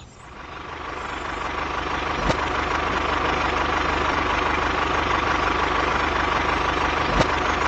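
Vehicle engine running steadily at idle. It fades in over the first two seconds, with a faint steady hum on top and a single click about two seconds in and another near the end.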